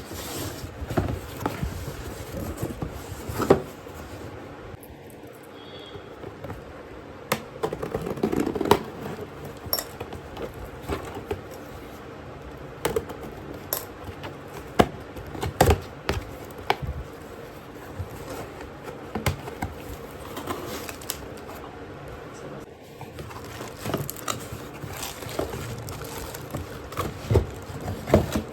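Irregular clicks, knocks and light rattles of plastic and packaging as a mixer grinder and its parts are unboxed and handled.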